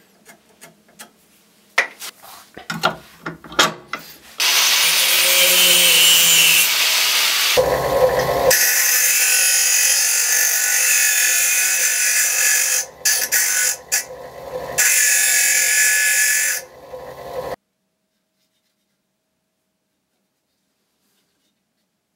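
Bench grinder grinding the end of a small steel pin held against its wheel: a loud, steady grinding hiss, broken by a few short gaps as the pin is lifted off, after some light taps of handling. It cuts off abruptly, leaving silence.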